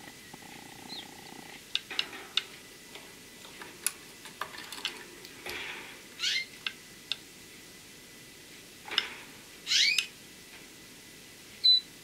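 Pet canaries in a cage giving short chirping call notes, a few sweeping quickly in pitch, with small clicks and taps between them.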